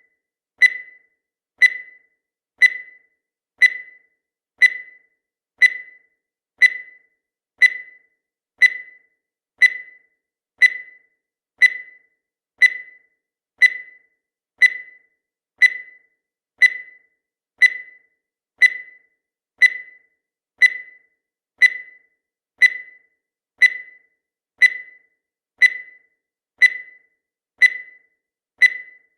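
Countdown timer sound effect: a short, high tick once a second, each fading quickly, evenly spaced throughout.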